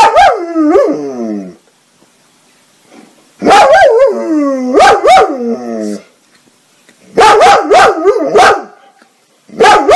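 German Shepherd dog barking and howling in four loud bouts, each cry swooping up and then sliding down in pitch.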